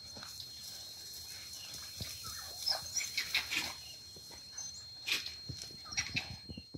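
Short high-pitched calls from African wild dogs and a spotted hyena feeding together on an impala carcass, coming in two clusters, one about two and a half to four seconds in and one around five to six seconds in. A faint steady high tone runs underneath.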